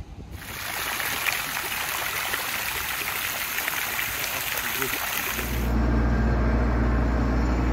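Fountain water spilling off the rim of a statue's bowl and splashing into the basin below, a steady splashing hiss. About five seconds in it cuts to music with a steady low bass.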